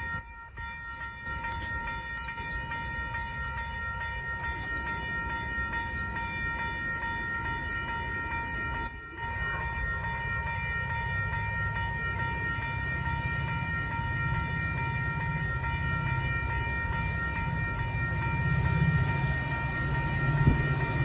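Metra F40PH-2 diesel locomotive and train running, a steady set of high-pitched tones held throughout over a low engine rumble that grows louder near the end. The sound drops out briefly about nine seconds in.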